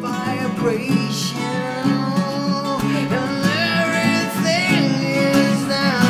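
Two acoustic guitars strummed together while a man sings a melody over them.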